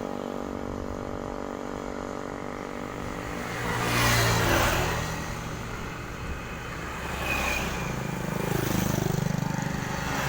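Road traffic passing close by: one vehicle rushes past about four seconds in, and a heavier engine with a low, pulsing sound goes by near the end. No musical horn sounds.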